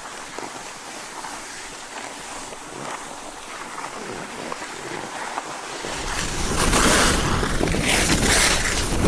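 Skis sliding and scraping over snow on a ski slope, quiet at first, then from about six seconds in much louder, with swishing surges as the skier picks up speed and wind buffeting the microphone.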